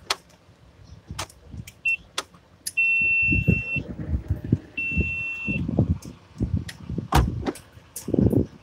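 Shopping being loaded from a cart into a car, with knocks and rustling of bags and items being set down. An electronic beeper sounds a short blip, then two steady high beeps of about a second each.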